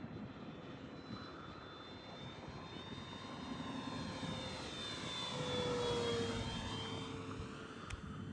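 Electric FMS P-47 Razorback RC warbird flying a pass, the whine of its motor and propeller growing to its loudest about six seconds in, its pitch dropping as it goes by.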